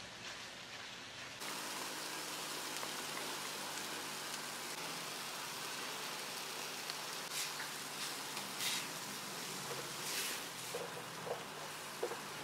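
Oncom filling with chilies and spring onions frying in a pan, a steady sizzling hiss, with a few short scrapes of a spatula stirring it in the second half.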